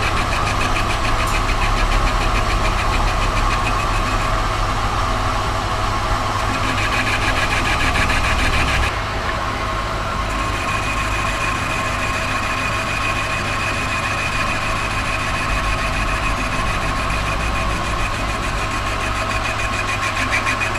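Machinery running steadily with a low hum and a high whine; it becomes slightly quieter and duller about nine seconds in.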